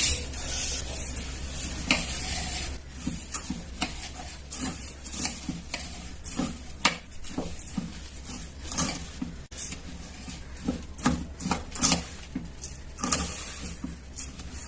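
A spoon stirring and scraping a mixture of red rice, roasted moong dal and groundnuts through jaggery syrup in a kadai, in quick irregular strokes. It is louder for the first couple of seconds.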